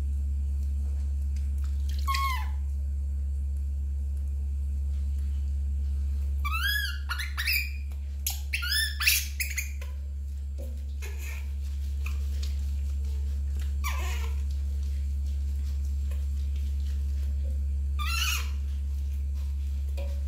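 Baby monkey giving high-pitched squealing calls during its bath, each call rising and then falling in pitch. They come in scattered bouts: one early, a quick run of several about a third of the way in, and single ones later. A steady low hum runs underneath.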